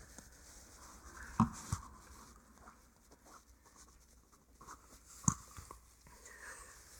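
A few faint scattered clicks and knocks from handling a small valve on an air compressor tank, the loudest about a second and a half in, just after, and again near five seconds.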